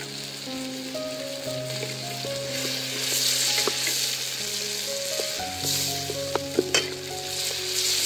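Chopped tomatoes and peppers sizzling and bubbling in a wok over a wood fire while being stirred with a wooden spoon; the sizzle grows louder about three seconds in, and a few short knocks sound near the end. Background music with sustained notes plays underneath.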